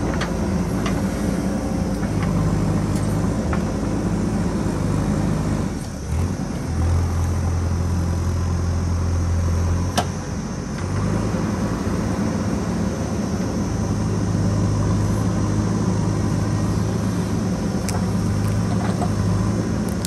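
JCB 3DX backhoe loader's diesel engine running steadily while the backhoe digs. About six seconds in, its note dips, then holds lower and stronger for a few seconds. A single sharp knock comes about ten seconds in.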